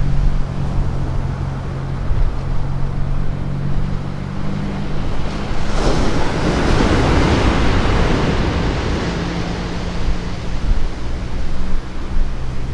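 Sea surf breaking on a sandy beach, with one wave crashing and washing up about halfway through, swelling and then fading over a few seconds. Wind rumbles on the microphone throughout.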